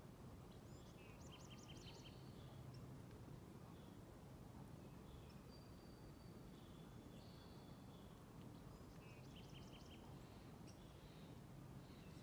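Faint wild birdsong: a short phrase of about five quick high notes, heard twice about eight seconds apart, with a few thin whistled calls between, over a steady low background hum.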